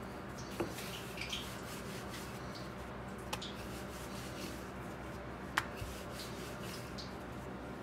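Wooden rolling pin rolling out a small round of dough on a floured granite countertop: quiet, soft rubbing with a few faint clicks.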